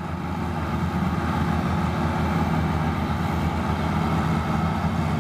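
Heavy earthmoving machine's engine running steadily, its level rising a little over the first second.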